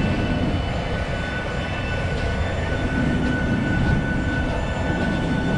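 Steady turbine aircraft noise on an airport apron: a constant low rumble with an even, high-pitched whine that holds the same pitch throughout.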